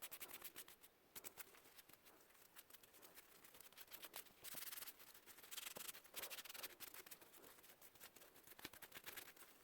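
Faint scrubbing and scratching as greasy microwave parts are cleaned by hand, with scattered small clicks and a couple of louder scrubbing strokes near the middle.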